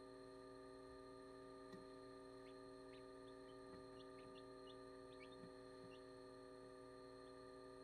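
Faint, high peeps of newly hatched chicks, about a dozen short calls scattered through the middle, over a steady electrical hum.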